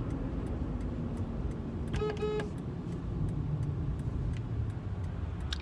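Steady low rumble of a car's engine and cabin as the car sits running, with two short beeps about two seconds in.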